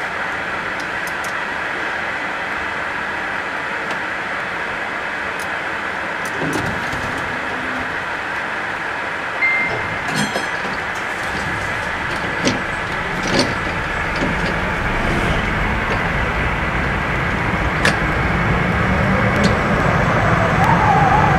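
DÜWAG crank-controlled tram heard from inside the driver's cab as it gets under way: steady running noise of the motors and wheels on the rails, with scattered clicks and knocks. The running grows louder and deeper in the second half as the tram picks up speed, and a wavering tone starts near the end.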